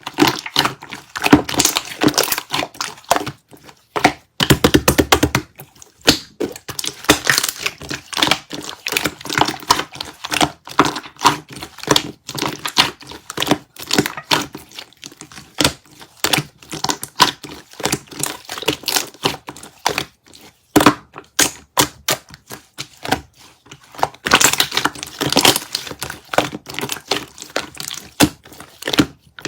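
Slime being squeezed, poked and folded by hand, making dense crackling, clicking and popping. About four seconds in there is a quick run of tiny rapid pops.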